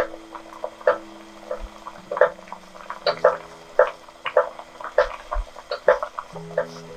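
Thick curry sauce bubbling and plopping in a pot as it is stirred, with irregular wet pops a few times a second.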